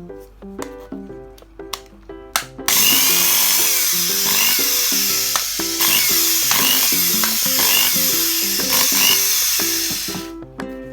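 Cordless power tool motor running for about seven and a half seconds, starting abruptly a few seconds in and stopping near the end, with its whine rising and falling several times as the trigger is worked.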